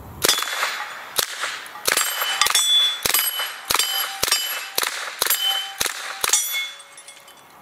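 Steel plate targets clanging and ringing as rounds hit them, about a dozen sharp strikes over some six seconds, with the muffled chatter of a suppressed Cobray M11 9mm machine gun on full auto. The firing stops a second before the end, and a plate rings on briefly.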